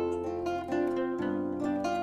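Viennese concert zither playing a Ländler melody. Plucked melody notes ring over accompaniment and bass strings, and the bass notes change every half second or so.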